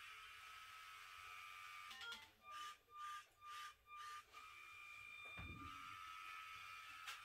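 Faint steady whine of a LEGO Mindstorms Robot Inventor car's small electric motors as it drives itself. Four short bursts of louder whirring follow one another about two to four seconds in, and a soft thump comes about five seconds in.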